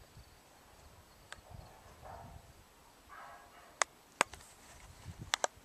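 Faint low wind rumble with a few sharp clicks, two louder ones in the second half and a quick pair near the end.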